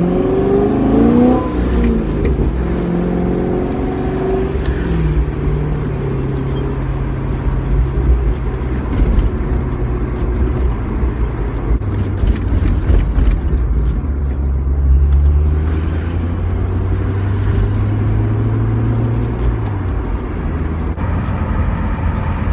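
C6 Corvette's V8 through a Corsa X-pipe exhaust, heard from inside the cabin: revs rise as the car pulls away, then it settles into a steady low drone while cruising. About halfway through, a deeper drone swells for several seconds, then eases near the end.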